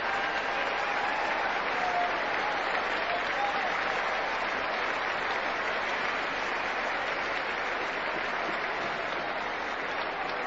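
Stadium cricket crowd applauding steadily, a dense, even clapping.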